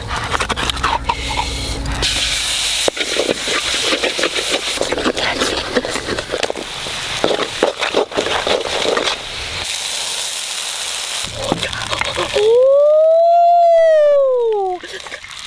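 Food sizzling and spattering in a hot pan as sauce and vegetables are stirred with a wooden spatula. Near the end comes a loud, drawn-out tone of about two and a half seconds that rises and then falls in pitch.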